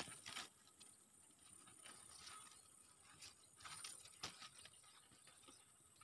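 Near silence: faint outdoor ambience with a few soft ticks and rustles, one sharper tick about four seconds in.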